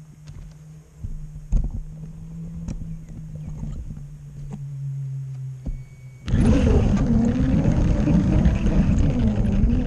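Model train's motor and wheels heard from a camera riding on it: a low steady hum with scattered clicks, then about six seconds in a sudden, much louder rattling rumble with a wavering whine as the train speeds along the plastic track.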